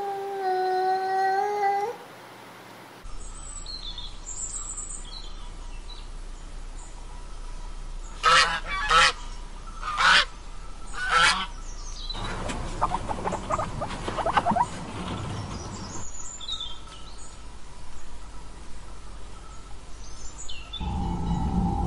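Roosting flying foxes: four loud, harsh screeches about a second apart, then a couple of seconds of rapid chattering, with small birds chirping faintly in the background. The first two seconds hold a different animal's drawn-out, steady call.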